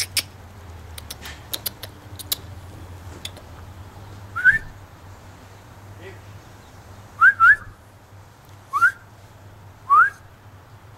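A person whistling five short rising notes, two of them close together in the middle, with a few sharp clicks in the first couple of seconds.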